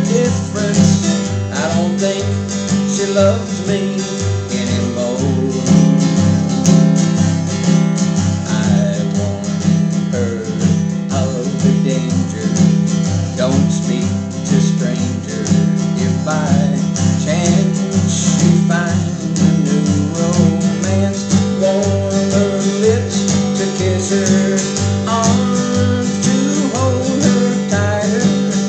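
Acoustic guitar strummed in a steady country rhythm, with a man's voice singing along.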